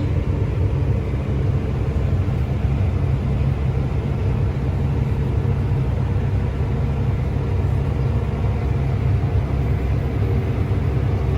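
Combine harvester running steadily in the wheat, heard from inside its cab as a constant low rumble with a steady engine hum.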